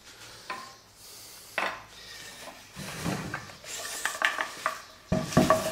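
Wooden workpieces being handled on a wooden workbench: a few light knocks of wood on wood, some rubbing and shuffling, and a louder clatter near the end.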